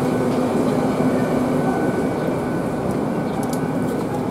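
GWR Class 800 bi-mode train standing at the platform, its underfloor diesel engines and equipment running with a steady hum.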